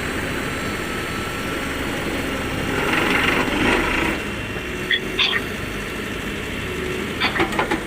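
Excavator engine running steadily while working a vibratory drum roller attachment. The noise swells for about a second, about three seconds in, and there are sharp knocks about five seconds in and a quick cluster of them near the end.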